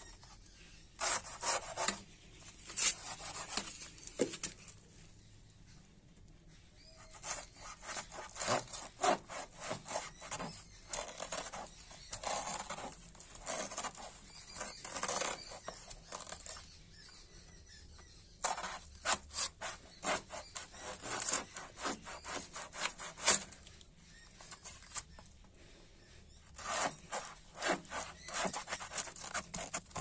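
A knife sawing back and forth through a banana plant's soft, layered stem: runs of quick rasping strokes lasting several seconds each, with short pauses between them.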